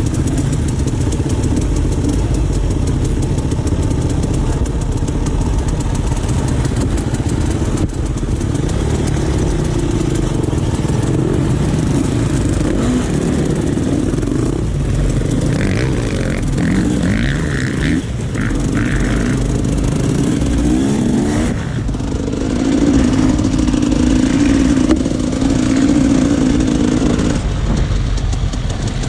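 Off-road dirt bike engines running continuously under varying throttle, with a louder, steadier stretch of engine note in the last third.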